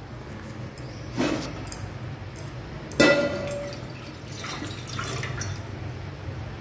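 A knock, then a sharp metallic clank that rings briefly, then water poured from a glass into an empty metal cooking pot, splashing on its bottom.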